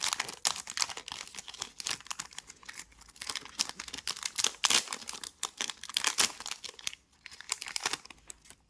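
Trading card pack wrappers being torn open and crinkled by hand: dense, rapid crackling that thins out near the end.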